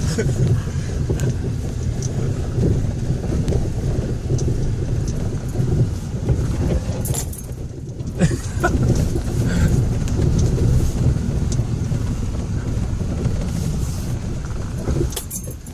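Ford Raptor pickup driven slowly over a rough, rocky trail, heard from inside the cab: a steady low engine and tyre rumble with loose rattles and small knocks as the truck jostles over rocks, and one sharper knock about eight seconds in.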